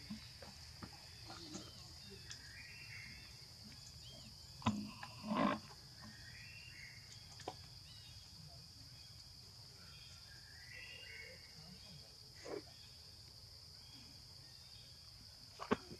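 Steady high-pitched insect drone with short chirping animal calls every few seconds. A few brief knocks or rustles stand out, the loudest two about five seconds in.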